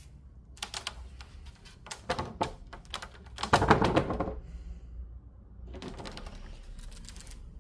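Sharp clicks and knocks of rigid quartz-vinyl flooring samples being handled, in small groups with the loudest clatter about three and a half seconds in, followed by a softer rustle near the end.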